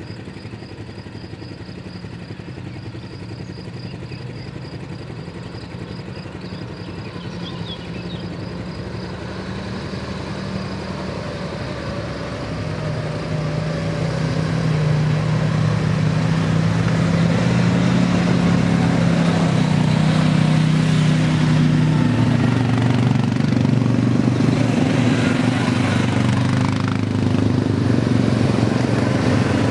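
Engines of a group of ATVs (quad bikes) running as they ride along a dirt track. The engine sound grows louder over a few seconds around the middle, as the machines come close, then stays loud and steady.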